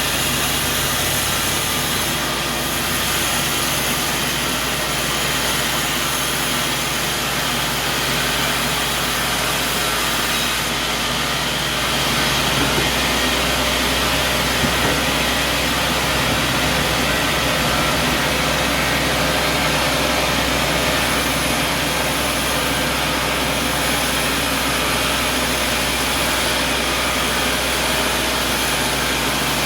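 Sawmill machinery running steadily, a constant mechanical drone with hiss, getting a little louder about twelve seconds in.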